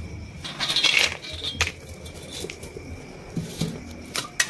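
Dry soya chunks go into an aluminium kadai with a short rattling pour about a second in. A metal spatula then clinks sharply against the pan a few times, near the middle and again near the end.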